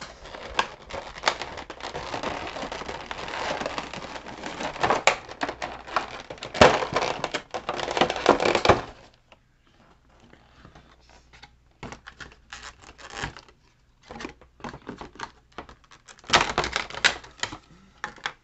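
Clear plastic packaging tray crackling, crinkling and clicking as it is pried apart to free stuck contents. The crackling is dense for about nine seconds, then gives way to scattered clicks, with a short burst of crackling near the end.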